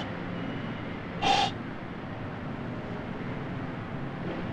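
One short, sharp kiai shout from a karateka about a second in, over a steady hiss.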